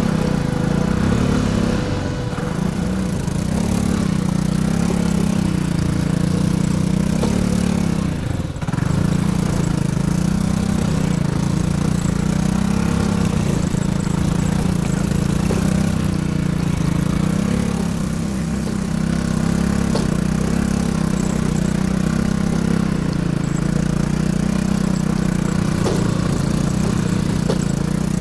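Vespa GTS 300 scooter's single-cylinder four-stroke engine running steadily, its pitch wavering a little, with a brief dip in level about eight seconds in.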